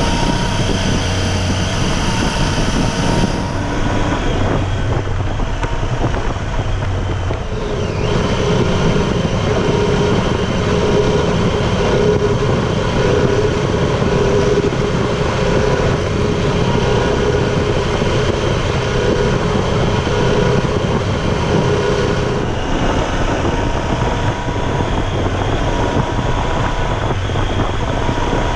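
Triumph Tiger 800 XCx's three-cylinder engine pulling under gentle throttle in fourth gear, around 3,500 to 4,200 rpm, with a steady high whine over the engine noise.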